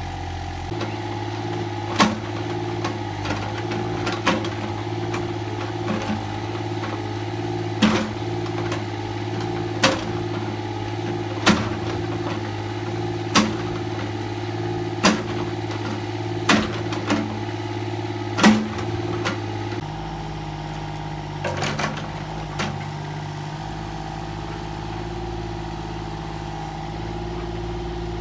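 An engine idling steadily, its note shifting lower about two-thirds of the way in. Over it come about a dozen sharp knocks or strikes, roughly one every one and a half to two seconds, which stop about two-thirds through, with a few fainter ones after.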